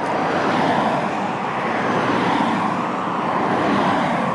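Motor traffic passing close by on a main road: tyre and engine noise swells and stays loud, with a small van going past near the end.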